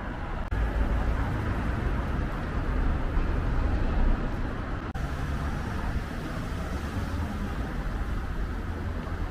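Road traffic on a town street: a steady noise of passing cars with a heavy low rumble, cutting abruptly twice where the footage is spliced.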